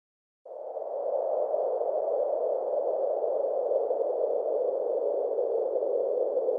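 A steady, grainy drone that comes in about half a second in and holds level, with two faint high steady tones above it.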